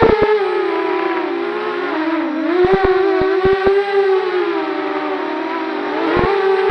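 Faulty audio from a Runcam 2 camera: a steady pitched whine with overtones that wavers slowly up and down in pitch, broken by short bursts of crackling clicks a little after two seconds in and again near the end.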